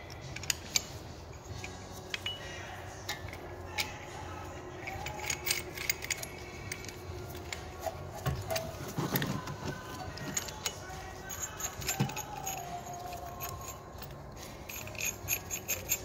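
Metal clicking and clinking as a brake piston rewind tool and its adapter plate are handled and fitted against a rear brake caliper piston, in scattered clusters of small knocks.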